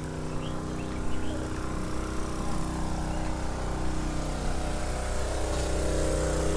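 Engine of a borehole drilling rig running steadily, a low machine hum that grows gradually louder.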